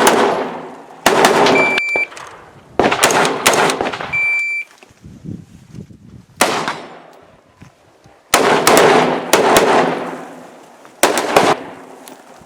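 Rifle shots fired one after another at uneven intervals, about eight in all, each a sharp crack with a long echoing tail. Two short beeps sound between the early shots.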